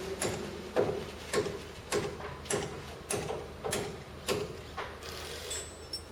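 Window shutter being operated, its slats clacking in an even rhythm just under twice a second and growing weaker until they stop near the end, with a steady hum that fades away in the first second.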